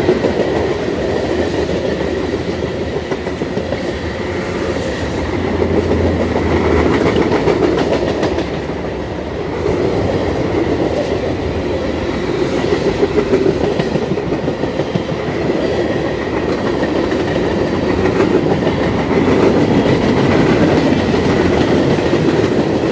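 Freight train of tank cars rolling past at speed: a steady loud rumble of steel wheels on the rail with a rhythmic clickety-clack, swelling and easing every few seconds as the cars go by, and a thin high squeal from the wheels.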